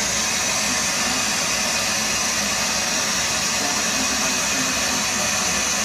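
Steady, loud hiss like static, even throughout and strongest in a high band.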